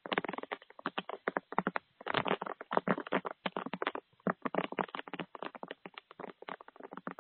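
Rapid, irregular crunching clicks close to the microphone, like an animal chewing dry food, in bursts with short pauses about two and four seconds in.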